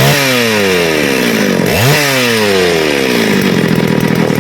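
Two-stroke chainsaw engine running and being revved: the pitch jumps up right at the start and again about a second and a half in, each time slowly winding back down to a steady run. The saw is running again after being troubleshot.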